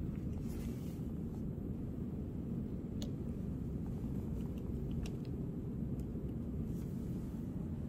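A few faint, light clicks of an oscilloscope probe being handled and its hook tip clipped onto a component on a breadboard, over a steady low background noise.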